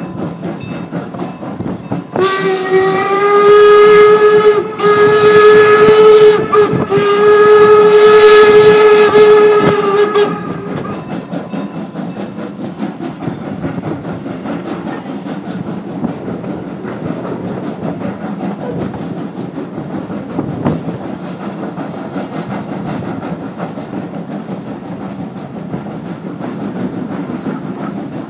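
Steam locomotive No. 90's single-note whistle, blown in three blasts about 2 s in, the last the longest, as the train nears a road crossing. Then the steady rumble and rattle of the passenger car rolling on the rails, with the engine's steam behind it.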